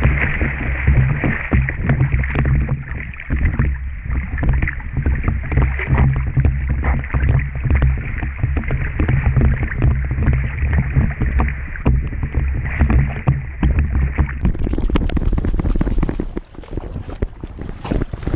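Water sloshing and splashing around a camera worn by a swimming Labrador carrying a stick, with a heavy low rumble and a dull, crackly wash of paddling water. About fourteen seconds in the sound turns brighter and thinner, and it gets quieter near the end.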